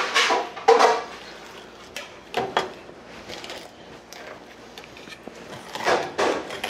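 Kitchen knife filleting an olive flounder on a plastic cutting board: short scraping strokes of the blade cutting along the fish's bones, a few in the first second, one about two and a half seconds in, and two more near the end.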